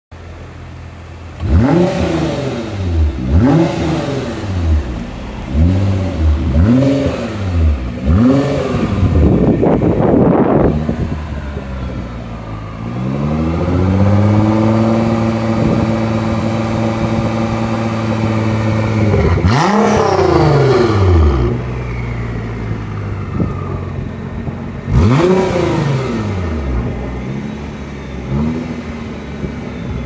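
Nissan GT-R R35's twin-turbo 3.8-litre V6 revved while parked, through an iPE remote-controlled valved performance exhaust. A string of about six quick throttle blips comes first, then a steady rev held for about six seconds that falls back to idle, and a single blip later on.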